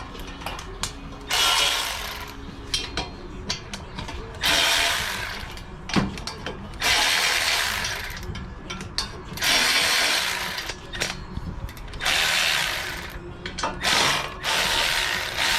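Ratchet wrench clicking in repeated strokes, working the bolts that hold the exhaust headers. There are about six quick runs of clicks, one every two to three seconds, with single clicks in between.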